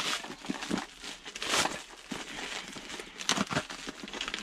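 Packaging crinkling and rustling in irregular bursts, with a few light clicks and knocks, as an antenna mount is unwrapped and handled.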